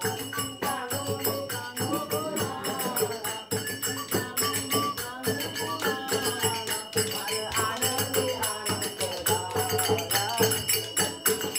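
Music: singing over a quick, steady drum beat with jingling percussion.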